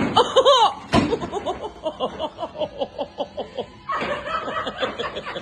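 A person laughing in a quick run of short, even pulses, about six a second.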